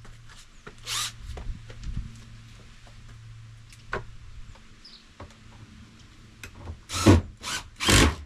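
Work noise on a plastic storage box while a hinge strut is fitted: scattered clicks and knocks, then three short, loud, rasping bursts near the end, over a faint steady low hum.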